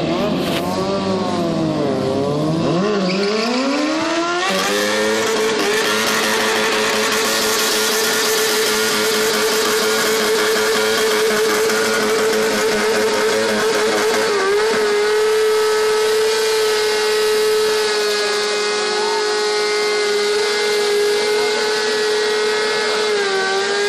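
Stunt motorcycle revved up and down for a few seconds, then held at high revs through a long burnout, the rear tyre spinning on the asphalt with a steady hiss under the engine's whine. The pitch dips briefly twice, about two-thirds of the way in and near the end.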